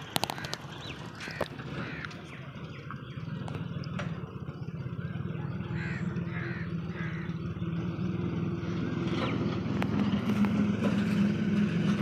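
Birds calling with a few short caws, mostly around the middle. Under them runs a low, steady hum that grows louder toward the end.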